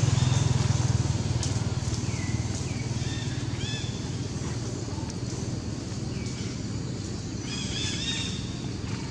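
A low engine hum from a passing vehicle, fading over the first few seconds, with short high chirping calls from animals several times, in a bunch near the end.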